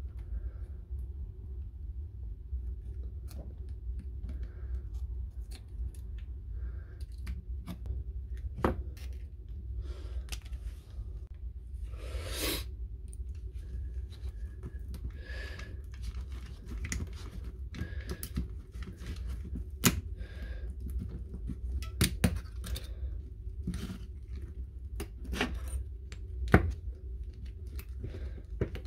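Scattered sharp clicks, snaps and scrapes of a metal pick prying the metal connecting strips off the cells of a lithium-ion battery pack, with a longer tearing scrape about twelve seconds in, over a steady low hum.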